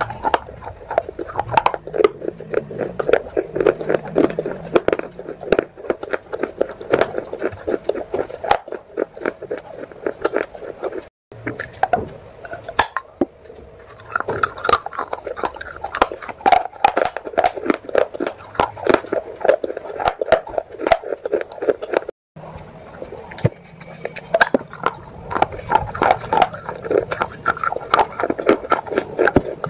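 Close-up biting and chewing of soaked clay pot: a dense run of quick, crisp crunches. It cuts out briefly twice, about a third and two-thirds of the way through.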